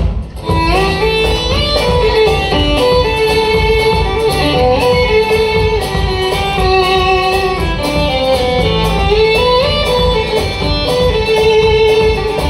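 Live band playing an instrumental passage of the song: an even plucked guitar rhythm under a melody line that slides between notes.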